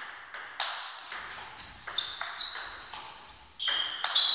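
A table tennis rally: the ball clicks off the rackets and the table, one hit about every half second to a second, each with a short ringing ping and echo from the hall. The hits come louder and closer together near the end.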